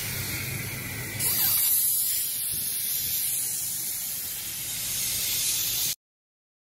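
Air hissing steadily out of a Toyota Land Cruiser's tyre valve as the tyre is let down, with a low hum underneath. The hiss grows louder about a second in and cuts off suddenly near the end.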